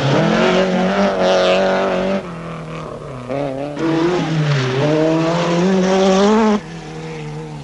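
Rally car engines revving hard through a night stage, the pitch climbing and dropping again and again with throttle and gear changes. The sound drops suddenly about two seconds in and again near the end.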